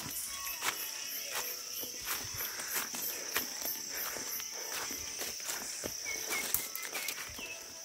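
Footsteps crunching through dry leaf litter on a forest trail, under a steady high insect drone with a higher pulsing chirp repeating about three times a second.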